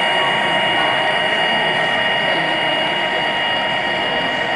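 Model locomotive running along layout track: a steady mechanical whir of its motor and gears, with a high steady whine over it.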